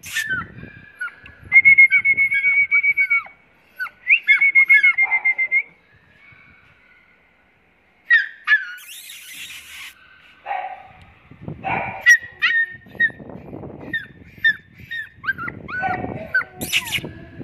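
Husky puppy whimpering and yelping in many short, high, falling cries, with two longer wavering whines in the first few seconds. Scuffling noises mix in with the cries in the second half.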